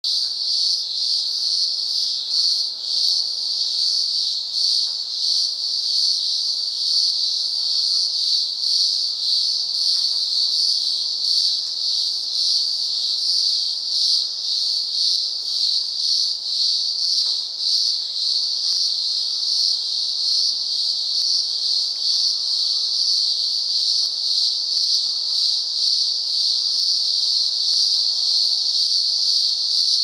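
Chorus of many cicadas calling together: a loud, steady, high-pitched drone whose loudness wavers slightly.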